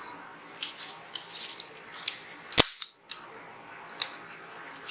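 Metal parts of a Zigana 36 9mm pistol clicking and snapping as it is reassembled: scattered small clicks, with one much louder sharp snap about two and a half seconds in.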